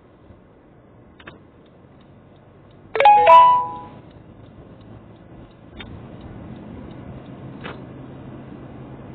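An electronic two-note ding-dong chime sounds once, about three seconds in. Over a low in-cabin hum, the car's engine and road noise grow louder from about six seconds on.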